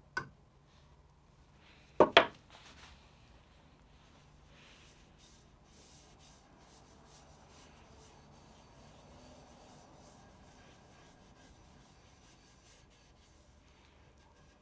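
Two sharp knocks about two seconds in, then a gloved hand rubbing raw linseed oil into a wooden knife handle: a faint, even rubbing with small ticks.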